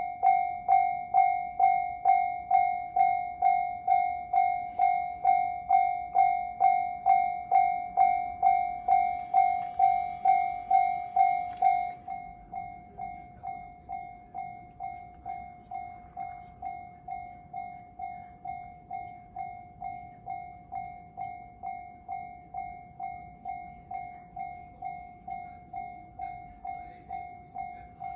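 Japanese railway level-crossing warning bell ringing at about two dings a second, each ding dying away. It drops to a noticeably lower volume about twelve seconds in and keeps ringing.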